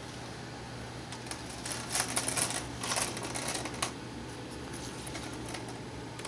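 Stacked paper cookbooks being flipped through by hand in a display rack: a flurry of quick papery flicks and rustles from about one to four seconds in, over a steady low hum.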